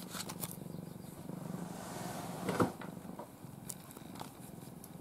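Domestic cat purring, a steady pulsing low hum, while a hand and cloth rub over its fur with soft rustles. A short louder sound comes about halfway through.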